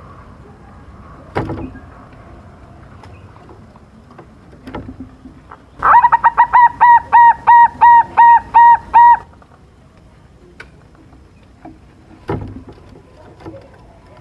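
Zebra dove (perkutut) cooing: a run of about a dozen quick, clear notes, roughly three or four a second, lasting about three seconds near the middle. A few short, sharp knocks come before and after it.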